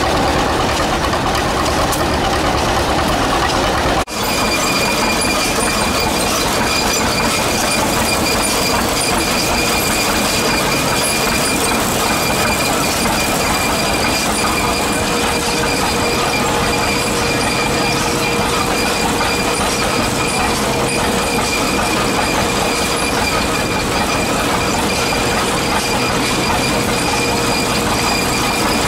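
Belt-driven threshing machine running, powered by a vintage John Deere tractor through a long flat belt: a steady mechanical clatter and rumble with a high, steady whine. The tractor's engine is heard close up for the first few seconds, then the sound cuts briefly about four seconds in.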